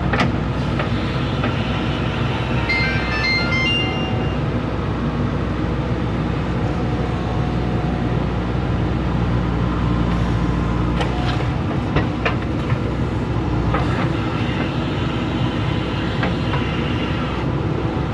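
A heavy diesel engine running steadily with a low rumble, with a few short sharp clicks about two-thirds of the way through.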